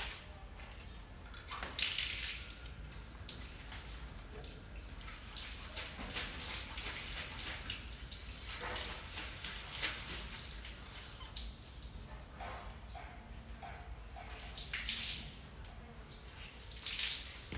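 Water running from a tap and splashing as something is washed by hand, with louder splashes about two seconds in and twice near the end.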